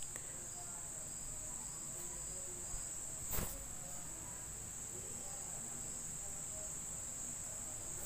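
Steady high-pitched chirring of crickets, with a light knock about three and a half seconds in.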